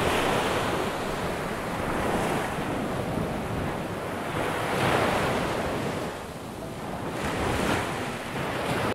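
Ocean surf washing onto a sandy beach, a steady rush that swells and eases every two to three seconds.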